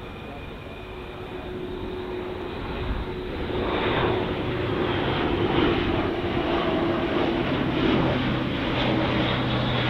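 Airbus A400M's four Europrop TP400-D6 turboprops and propellers droning as the airliner-sized transport flies by. The sound grows louder over the first few seconds, then holds as a steady roar with a propeller hum.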